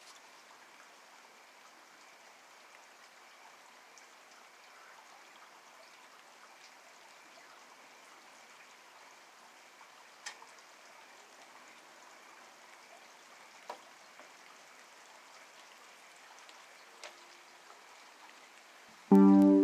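Steady, faint rain falling at night, with a few louder single drops tapping on a surface.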